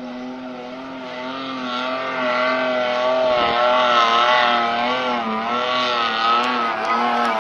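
Off-road 4x4's engine running at high revs, its pitch wavering up and down a few times a second as it works; it gets louder about two seconds in.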